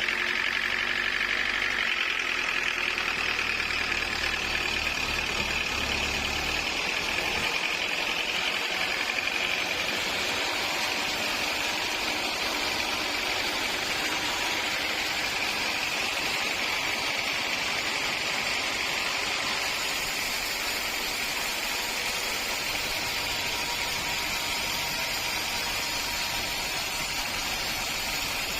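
Sawmill machinery running steadily, with a high whine from the saw. A low engine hum stops about six and a half seconds in.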